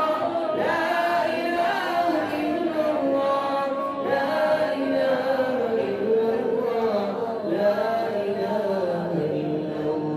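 Quran recitation: a single voice chanting melodically in long, drawn-out notes that slide between pitches.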